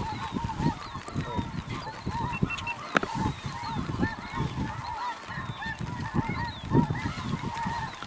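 Chorus of snow geese calling: many overlapping short, high honking calls, with a low rumbling noise underneath and one sharp click about three seconds in.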